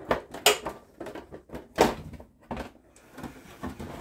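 Plastic rear housing of an Apple 17-inch CRT monitor being handled and lifted off, with a few sharp plastic clacks and knocks.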